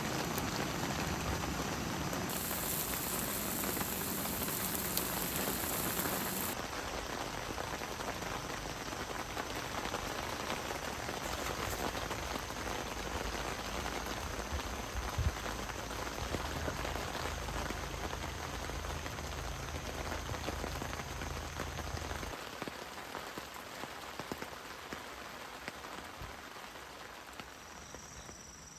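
Rain falling steadily, a dense hiss of drops that changes abruptly a few times and grows softer over the last third.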